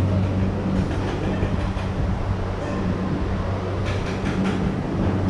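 Eatery room tone: a steady low hum of running fans and appliances over background noise, with a few light clatters about four seconds in.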